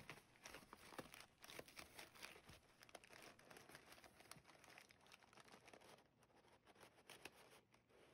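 Faint rustling and crinkling of a cardboard shipping box being handled and its flaps opened, with crumpled paper packing rustling inside; an irregular run of small scrapes and crackles that thins out about six seconds in.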